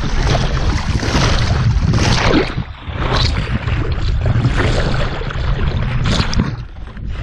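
Water rushing and splashing along the hull of a small wooden sailboat moving under sail, surging and easing with the waves, over a steady low rumble. The rush drops away briefly twice, a little before halfway and near the end.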